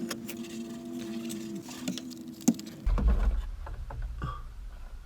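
Plastic dashboard trim being handled: scattered sharp clicks and rustling. A steady hum runs under it and stops about two and a half seconds in, and a low rumble starts just after.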